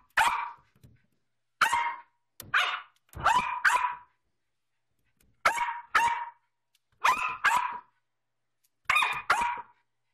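Small terrier barking in play, about a dozen sharp barks, mostly in quick pairs with short pauses between.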